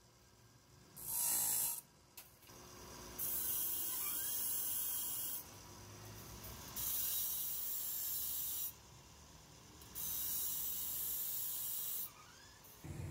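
Repeated bursts of harsh hissing noise from coil-spring metalworking: four bursts, each one to two seconds long, with short quiet gaps between them.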